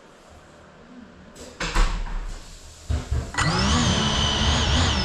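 Brushless motors of a GEPRC Cinelog 35 FPV cinewhoop drone spinning up: short bursts about a second and a half in, then a steady idle whine from about three and a half seconds in, the drone armed on the table just before takeoff.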